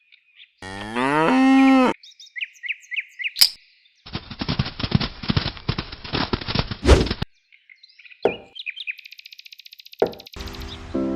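A cow mooing once, a long call that rises in pitch and then holds. It is followed by short high chirps and then about three seconds of rapid crackling clicks.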